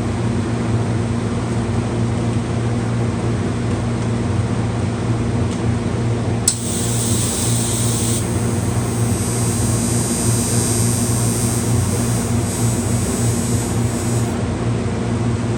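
Steady electric machine hum with a strong low drone. About six and a half seconds in, a click starts a high, steady hiss that runs for about eight seconds and then stops.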